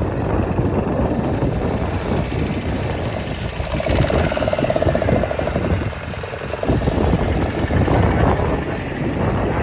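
Motorboat engine running steadily, a dense rumble, with a higher buzz joining for about three seconds in the middle.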